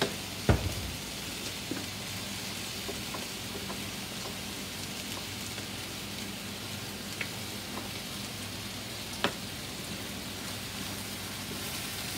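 Steady sizzling and bubbling from a pot of beef broth at the boil and a pan of tomato, onion and chile frying beside it on a gas stove. A wooden spoon stirs the broth, with a loud knock about half a second in and a few lighter clicks later.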